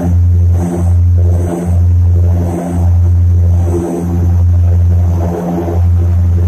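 Aircraft engines droning inside the cockpit: a loud, low, steady hum with overtones that dips briefly every second or so.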